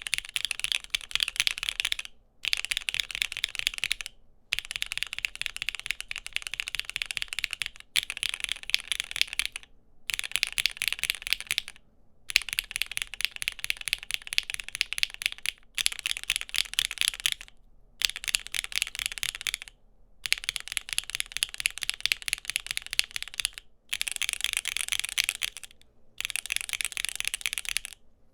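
Fast typing on a mechanical keyboard, a dense run of clacking keystrokes. It is cut into short runs of about two seconds each, separated by brief gaps of silence, as one switch after another is compared.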